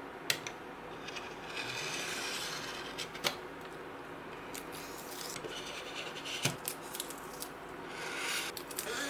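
A sharp blade scraping and cutting along vinyl film on a hard plastic surface, in a few stretches of scraping with several sharp clicks between them.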